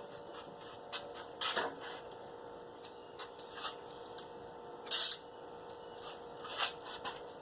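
A few short scraping and rubbing noises from hands working tools on the engine, loudest about a second and a half in and about five seconds in, over a faint steady hum.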